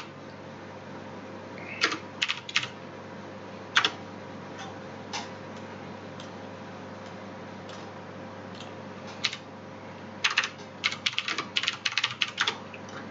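Computer keyboard clicking: a few scattered keystrokes, then a quick run of typing about ten seconds in, over a faint steady hum.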